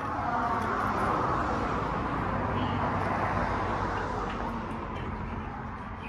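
A vehicle passing on a road: a steady rush of tyre noise that swells over the first second and fades over the last couple of seconds.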